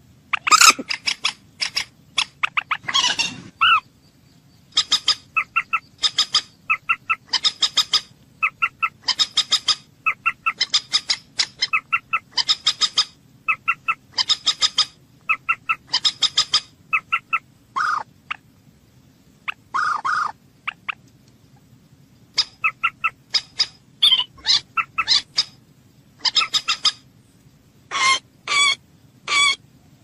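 Moorhen calls: short clucking notes repeated in quick groups, broken by a few longer calls, going on almost without pause.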